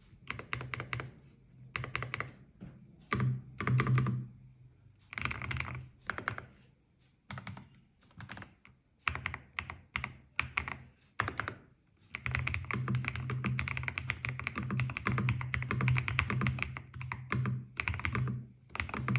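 Typing on an Ajazz AK820 Pro mechanical keyboard with Gift linear switches: short bursts of keystrokes with gaps for about the first twelve seconds, then fast continuous typing to the end.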